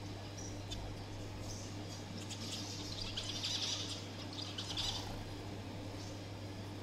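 Zebra finches chirping: scattered short high calls that thicken into a dense flurry about halfway through, over a steady low hum.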